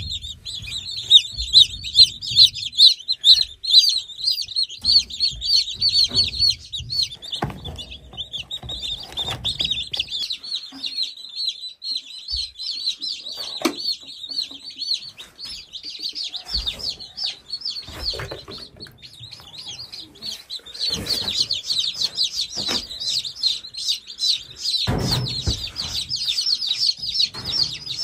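A brood of newly hatched chicken chicks peeping continuously, many high chirps overlapping, quieter in the middle stretch and busiest near the end. Occasional knocks and rustles from the brooder being handled.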